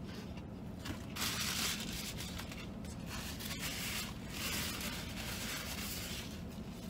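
Chewing a mouthful of fried chicken sandwich, with a paper napkin rustling and crumpling in several stretches as it is wiped across the mouth.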